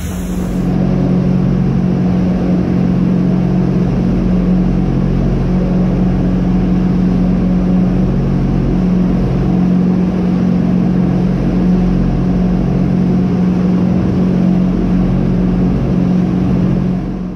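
Chaparral Signature 310 express cruiser's engines running steadily at speed: a loud, even low drone over the rush of the churning wake.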